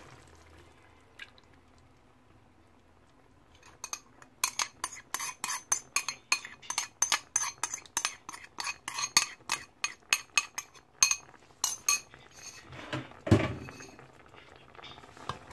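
Wooden spoon knocking and scraping against a ceramic bowl, a run of quick clicks about three a second, as the last of the gravy is scraped out into the pan. A single heavier knock comes near the end.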